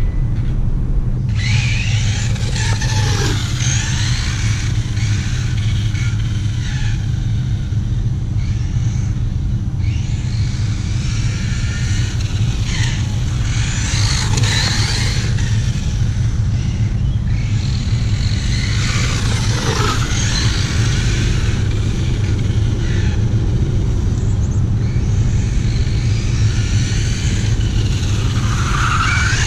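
ZD Racing 1/8 short course RC truck's brushless motor whining as it is driven, rising and falling in pitch several times as it speeds up and slows, over a steady low rumble.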